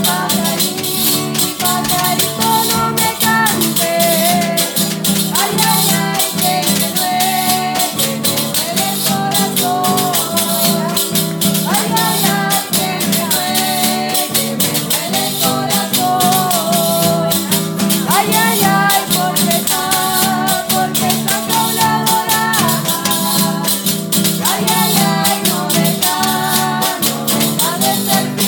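Live acoustic song: women's voices singing to a strummed acoustic guitar, with a tambourine shaken in a steady rhythm.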